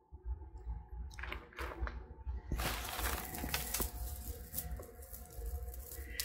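Rustling and light clicks of costume jewelry (faux pearl strands and earrings) being handled, starting about a second in and growing busier partway through, over a faint steady hum.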